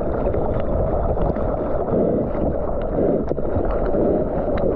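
Sea water rushing and splashing around a surfboard and a paddling arm, with scattered droplet ticks, close to a water-level action camera and with some wind on the microphone.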